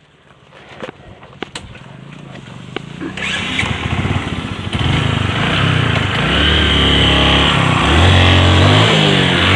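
Motorcycle engine coming in about three seconds in, after a few clicks, then revving up and down, its pitch rising and falling.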